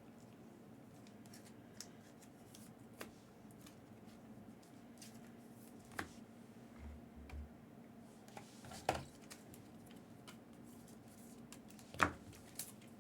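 Quiet handling of trading cards and their packaging: a few sharp, scattered clicks and taps over a faint steady hum.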